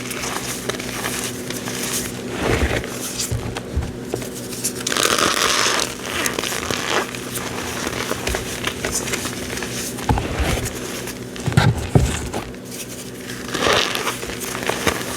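Reformed cornstarch being squeezed and crushed, giving squeaky crunching and crackling, with a longer, louder crunch about five seconds in.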